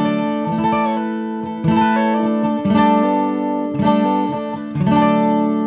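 Simon Fay Model 1 acoustic guitar (Sitka spruce top, desert ironwood back and sides) played capoed high up the neck: a run of about six ringing chords, the last one, about five seconds in, left to ring out and slowly fade.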